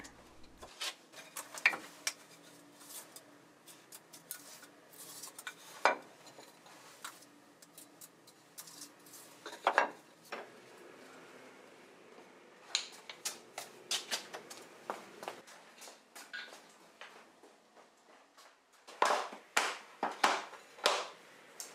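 Hickory scrap blocks knocking and clattering against each other as they are picked through and handled, in scattered single knocks, with a quicker run of knocks near the end.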